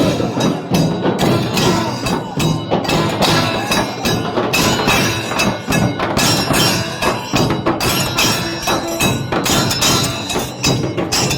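Loud percussion-led music: drums struck in quick, dense strokes under other instruments.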